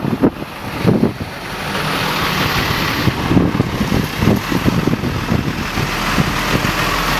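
Steady engine noise with wind buffeting the microphone, preceded by a few knocks and bumps in the first second or so.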